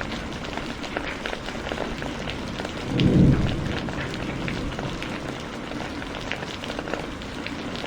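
Heavy rain falling, a steady hiss dotted with many sharp drop ticks. About three seconds in, a brief low rumble of thunder swells up and fades within about a second; it is the loudest moment.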